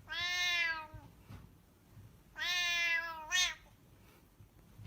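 A cat meowing twice: two long meows about two seconds apart, the second ending in a short rising cry.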